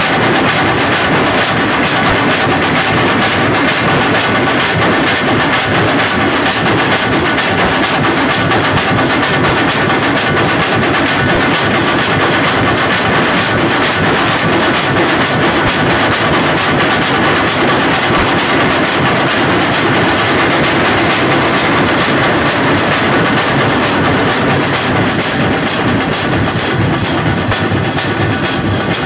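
Drum ensemble of large stick-beaten barrel drums and hand-held frame drums playing a fast, dense, continuous rhythm, easing off slightly near the end.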